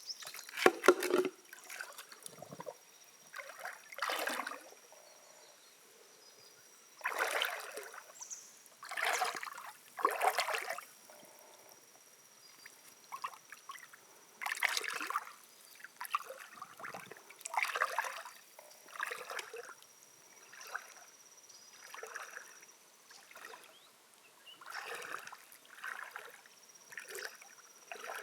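Water sloshing and splashing in separate strokes, one every second or two with short quiet gaps, over a faint steady high whine.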